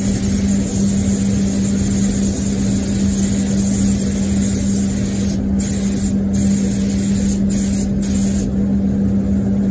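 Aeropro A608 gravity-feed air spray gun hissing steadily as it sprays paint, with a steady low hum underneath. The hiss cuts out briefly a few times in the second half.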